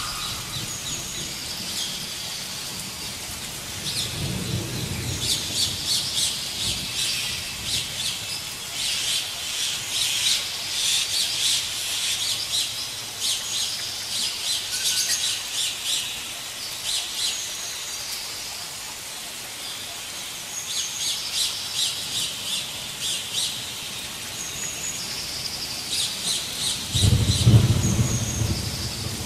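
Nighttime forest chorus of many small animals calling in rapid chirps and short high trills, layered and continuous. A low rumble comes near the end, and a weaker one a few seconds in.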